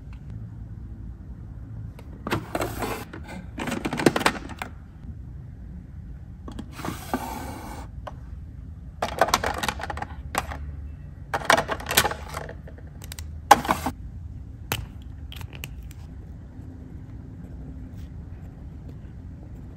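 Pens and washi tape rolls rattling and scraping as hands pick through clear plastic drawer organizers, in several separate bursts with a few sharp clicks after them.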